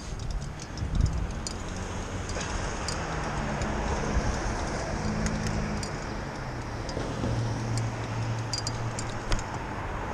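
Car traffic on a city street heard from a moving bicycle: a steady hum of engines and tyres, with an engine drone that rises and falls as a vehicle passes. Scattered light clicks and rattles run over it.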